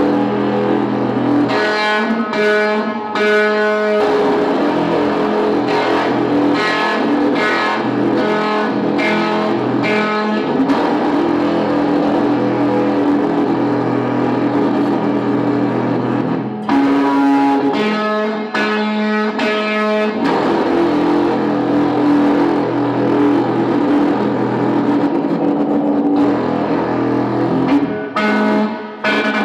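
Electric guitar driven into sustained feedback by a feedbacker unit: loud droning held notes that swell with bright, ringing overtones in spells, then settle back to a steady low hum.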